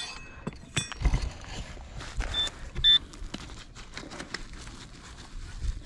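Metal detector giving two short high beeps about half a second apart a little past two seconds in, over scattered knocks and scrapes of digging for the target in soil.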